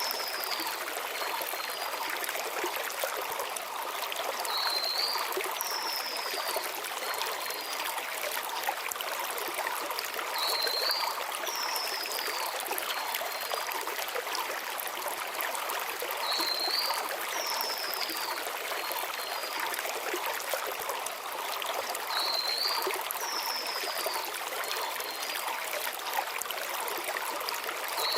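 Shallow mountain stream flowing over stones in a steady rush, with a small bird repeating a short song phrase about every six seconds: a quick rising note followed by a high falling whistle.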